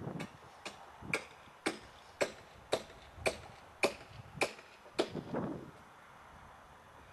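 A regular series of sharp knocks, about two a second and ten in all, each with a short ring, stopping about five seconds in.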